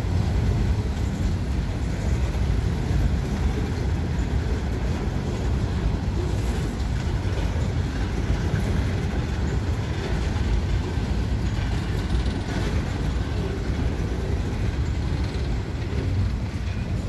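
Freight train of open-top gondola cars rolling past: a steady rumble of steel wheels on the rails that eases slightly near the end as the last cars go by.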